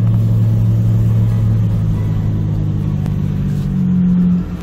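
Car engine and road noise heard from inside the cabin while driving: a steady low drone. Its tone shifts about four seconds in, and the level dips briefly just before the end.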